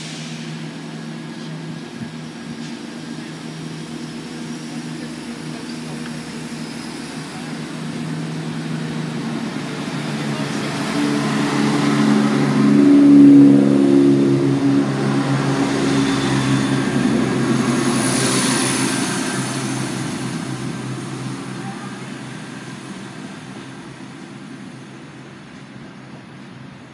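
Diesel multiple unit (Class 170 Turbostar) running close past along the platform, its underfloor diesel engines droning with rail noise. It grows louder to a peak about halfway through, then fades away.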